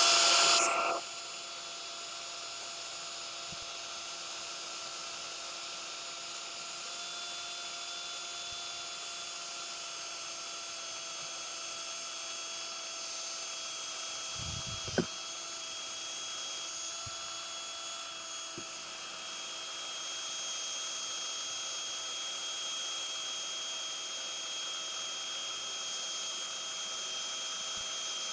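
Power drill running at a steady whine while drilling holes, loudest for the first second, with a single sharp click about halfway through.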